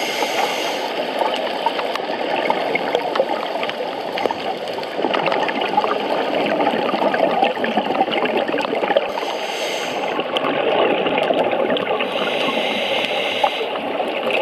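Underwater sound of a scuba dive: a steady rush of bubbling water full of fine crackling, with brief hissing surges of divers' exhaled bubbles near the start, about nine seconds in, and near the end.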